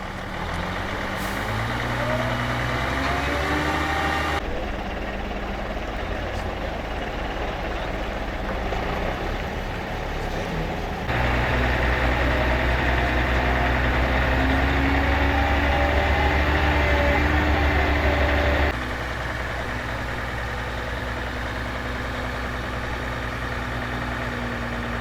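Engine running, its pitch rising and falling at times, in several sections that change abruptly from one to the next.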